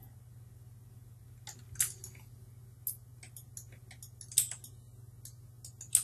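Scattered computer mouse and keyboard clicks, short and irregular, over a faint steady low hum.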